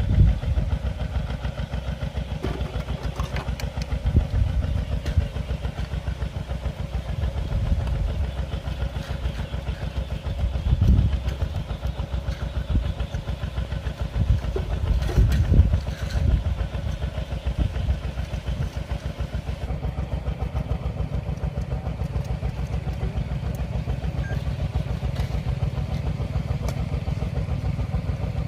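A small engine running steadily with a fast, even low putter, swelling louder a few times.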